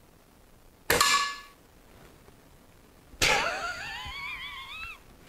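A single shot from a Daystate Red Wolf electronically regulated PCP air rifle set to 7.5 joules: a sharp crack about a second in, with a brief metallic ring. A second sharp sound follows about three seconds in, trailing into a wavering high-pitched sound for nearly two seconds.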